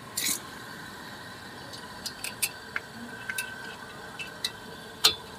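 Scattered light clicks and taps of small metal parts being handled at a car's front brake caliper as the brake pad wear sensor lead is fastened. A short scrape comes near the start and a sharper click near the end.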